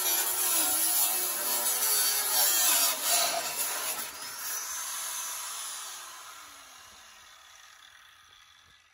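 Angle grinder with a cutting disc cutting through a steel exhaust pipe, its pitch wavering under load. About four seconds in it comes off the cut and the disc winds down, the sound fading away slowly.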